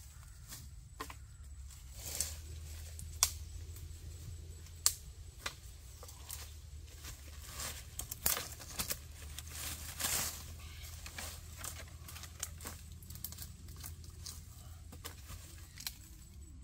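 Dry leaves, grass and twigs rustling and crackling as someone pushes through undergrowth on foot, with scattered sharp snaps, over a low steady hum.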